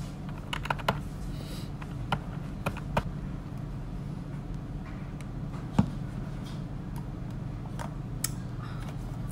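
Scattered keyboard clicks and taps at a desk over a steady low background hum, with one louder knock a little past halfway as a plastic coffee cup is set down on the desk.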